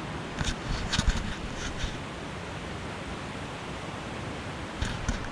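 Mountain stream water rushing steadily, with a few short clicks and knocks about half a second to two seconds in and again near the end.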